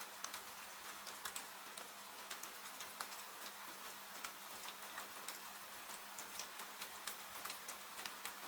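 Wood fire crackling with irregular sharp pops, several a second, over a steady hiss of rain.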